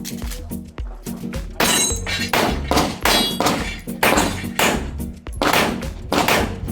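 Background music with a heavy, steady drum beat, about two beats a second, over a deep bass line.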